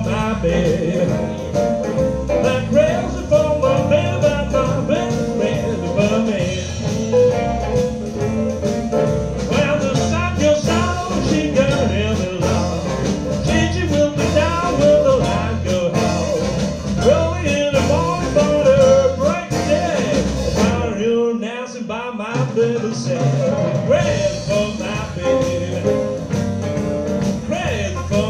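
Live blues band playing, with electric guitars, piano, bass guitar and drums behind a male lead singer. About three-quarters of the way through, the bass and drums drop out briefly in a short break before the band comes back in.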